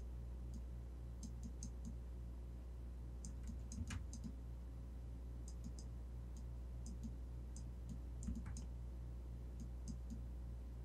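Light clicks of a computer mouse and keyboard, coming irregularly in small clusters, over a steady low electrical hum.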